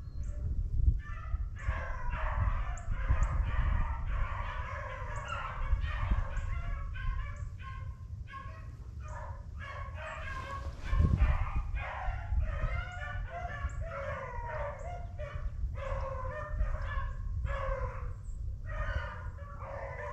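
A pack of beagles baying and bawling in overlapping calls as they run a rabbit on the trail. Underneath is a low rumble, with a sharp thump about eleven seconds in.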